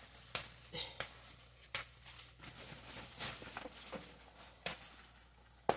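Fresh bitter leaf being stripped by hand from its stems: crisp leaf rustling broken by a handful of sharp snaps and tears as leaves pull away, the last near the end the loudest.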